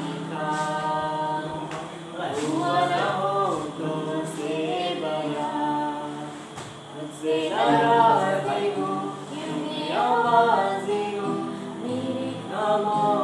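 A man and a woman singing a song together to an acoustic guitar, with the voices to the fore and the guitar underneath.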